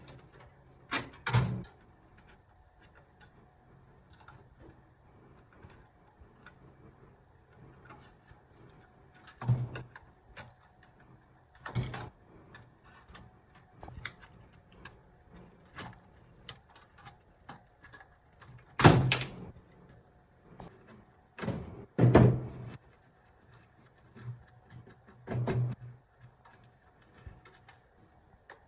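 Irregular knocks and clunks from parts being handled and set down on a workbench, with several loud sharp hits and quieter handling noises in between.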